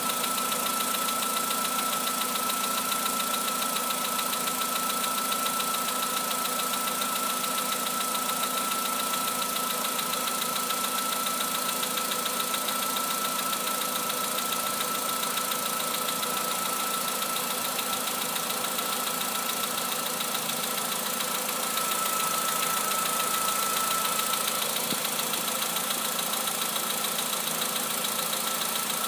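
Volkswagen Polo Sedan's CFNA 1.6 four-cylinder petrol engine running at a steady speed with a rapid, even metallic knock, which the owner takes for piston knock. A steady high whine runs alongside and fades out a few seconds before the end.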